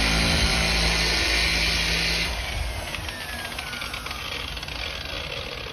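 Corded dual-action random orbital polisher running with its pad on the paint, then switched off about two seconds in, its motor winding down with a falling whine.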